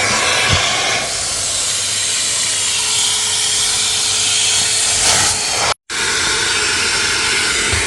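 Henry vacuum cleaner running, a steady hissing rush of suction, broken off for an instant about six seconds in and then carrying on.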